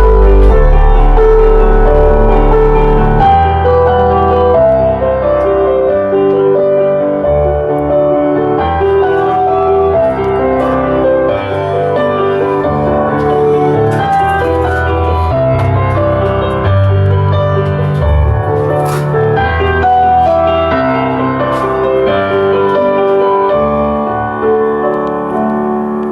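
Electronic music with a piano-like keyboard melody and deep bass, played loud through a workshop hi-fi with a Rockford Fosgate Punch P3 subwoofer. The deepest bass is heaviest for the first three seconds or so, then drops back.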